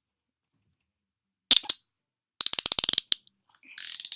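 Steel handcuff ratchet clicking as a Winchester cuff is worked: a couple of sharp clicks, then a quick run of about ten clicks, one more click, and a brief rasp near the end.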